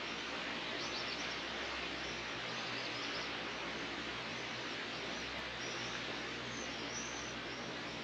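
Small birds chirping over and over in short, high calls above a steady rushing background noise.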